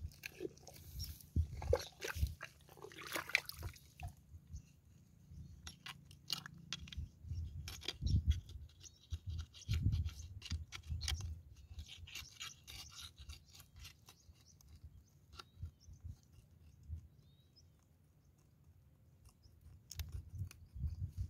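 Hands and a hooked steel crab rod digging and scraping wet mud at the mouth of a mangrove crab burrow: irregular scraping, crunching and knocks, with a quieter spell of a few seconds late on before the digging resumes.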